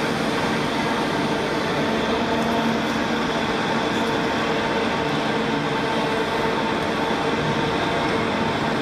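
Steady mechanical drone of a large walking mechanical elephant's engine and hydraulic machinery: an even rumble with a hum of several steady tones that does not let up.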